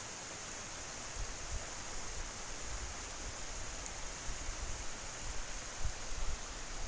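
Steady rushing hiss of flowing water, with a few low wind rumbles on the microphone near the end.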